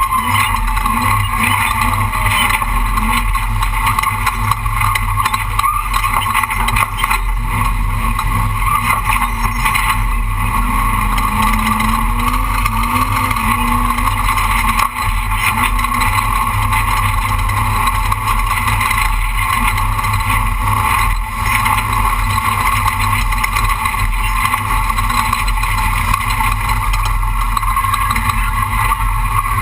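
Off-road race truck running steadily at speed, its engine and road noise holding an even level throughout.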